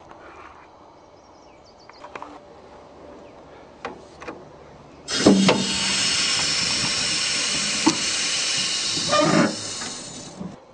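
A few light clicks and knocks, then a loud, steady hiss that starts suddenly about halfway through, holds for about five seconds and dies away near the end.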